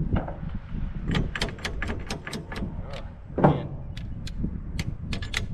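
Rapid sharp metallic clicks and taps, a few a second, as a steel pin is worked into the holes of windmill parts, with one louder thump about halfway through.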